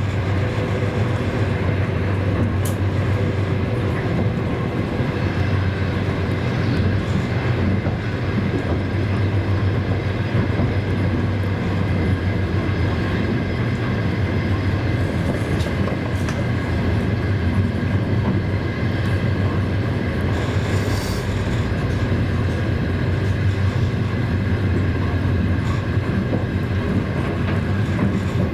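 Train running, heard from inside the passenger car: a steady rolling rumble with a low hum and a few faint clicks from the wheels.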